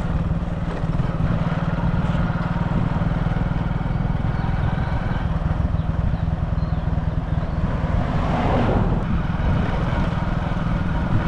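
Vehicle engine running steadily while being driven, with a brief louder rush of noise about eight seconds in.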